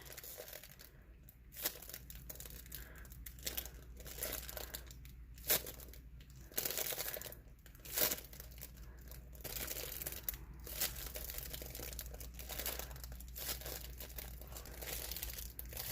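A homemade squishy toy being squeezed over and over in the hands, giving off irregular crinkling and crackling with a few louder crackles along the way.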